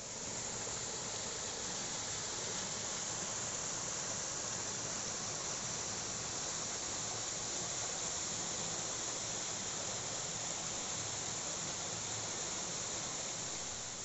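Waterfall and mountain stream rushing: a steady, even hiss of falling water.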